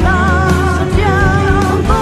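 Background pop music: a singer holding long notes with a wavering vibrato over a full band with a heavy bass line.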